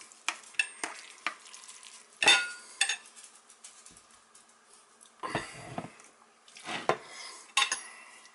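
Metal utensil clinking and scraping against a serving bowl and plate as cooked fajita peppers and meat are spooned out: a string of sharp clinks in the first three seconds, the loudest about two seconds in, then softer scraping and shuffling of the food.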